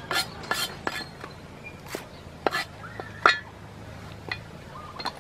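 Steel cleaver chopping cabbage on a round wooden chopping block: a string of sharp, irregularly spaced knocks, the loudest about three seconds in.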